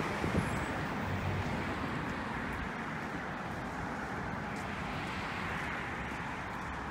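Steady road traffic noise, swelling and easing a little as vehicles pass.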